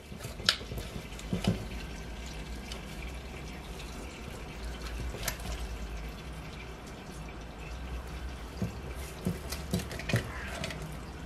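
Kitchen shears cutting up a cooked whole chicken: scattered snips and clicks, a few seconds apart, over a low steady hum.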